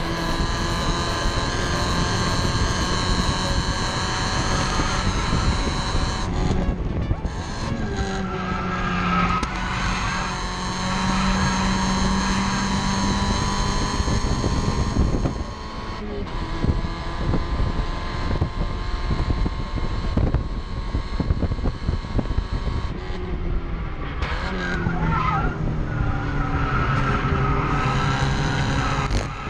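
Spec Miata race car's four-cylinder engine running hard at high revs. The engine note breaks three times, at about a quarter, half and four-fifths of the way through, as the driver shifts or lifts, then climbs again each time. Tyres squeal at times.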